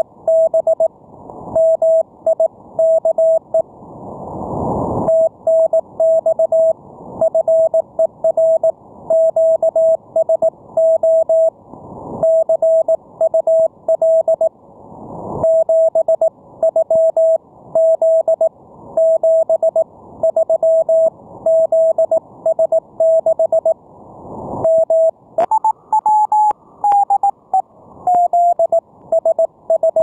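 Morse code (CW) received on an amateur radio receiver: a single steady note keyed in dots and dashes, with band hiss swelling up in the gaps between words. This is one station sending a brief thank-you for the contact. Near the end the note jumps higher and slides back down to its usual pitch.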